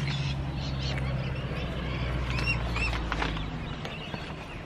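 Outdoor background with a steady low hum that fades away about three and a half seconds in, and a few short bird chirps in the middle.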